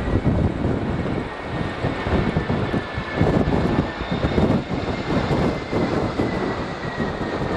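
Jet engines of an Airbus A320-214 (CFM56-5B) at go-around thrust: a thin high whine that slowly drops in pitch. It sits under a loud, gusty rumble of strong wind buffeting the microphone.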